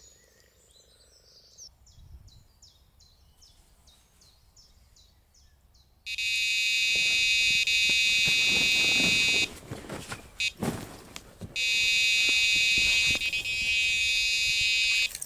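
Electronic carp bite alarm sounding one continuous high tone, twice for about three to four seconds each, with a short break of knocks between: a fish taking the bait and running with the line.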